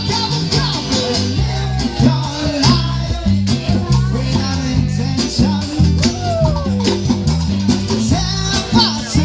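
Live band playing a song with a lead singer, a bass line moving from note to note under the sung melody.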